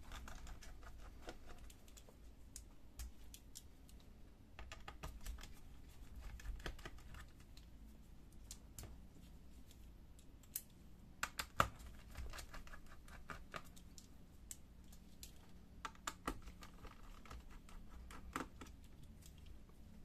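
Sparse, faint clicks and light taps of a small screwdriver and tiny screws on a laptop's metal hard-drive caddy and plastic chassis as the caddy screws are taken out, with one sharper click about halfway through.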